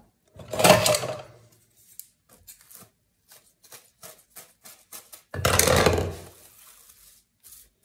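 Plastic cling film crinkling and rustling as it is pulled off the roll, cut and stretched over a bowl: two louder rustles, one near the start and one about five and a half seconds in, with small crackles between.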